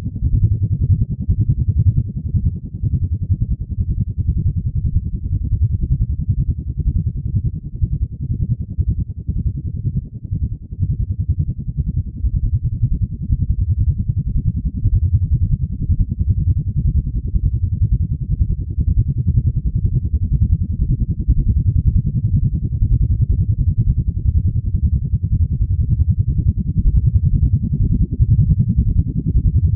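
Ambient drone sound effect: a steady, deep rumble with no high whine, swelling and dipping a little.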